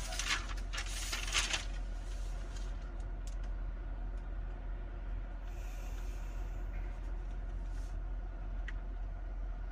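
Steady low hum in a quiet truck cab with the engine off, with a short rustle and a couple of light knocks in the first second and a half, then a few faint ticks.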